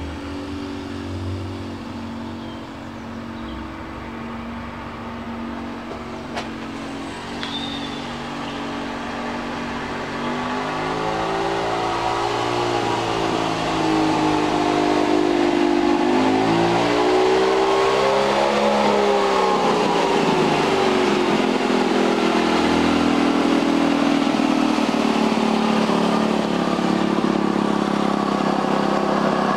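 Model aircraft engine in a 16mm-scale Bo-Bo garden-railway diesel locomotive, running under load while hauling a long goods train. Its pitch swings up and down around the middle, and from about halfway it runs steadier and louder.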